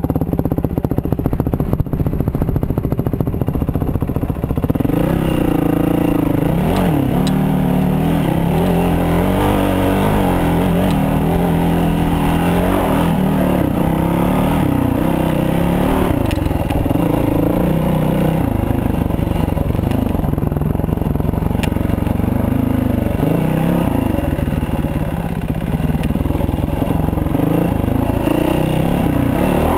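Dirt bike engine running hard under throttle, its pitch rising and falling every second or two as the rider works the throttle across a steep slope, with brush and stones scraping and clattering now and then.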